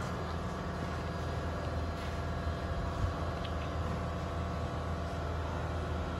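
Steady low machine hum, with a faint tap about three seconds in.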